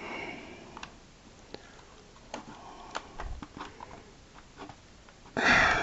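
Small plastic clicks and taps as fingers pry at and handle the hinged hull of a small plastic toy starship to open it, with a soft low bump about three seconds in. A short sniff near the end.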